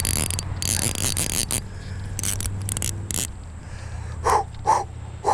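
Bursts of rustling noise over a low steady hum, then three short crow caws near the end.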